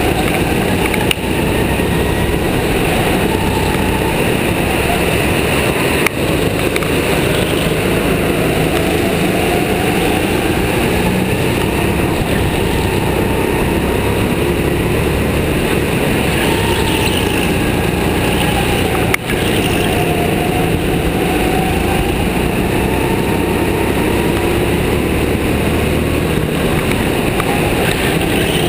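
Onboard sound of a racing go-kart's engine, its note rising and falling as the kart accelerates out of corners and slows for the next, over a constant noisy rush. The sound drops out for an instant three times.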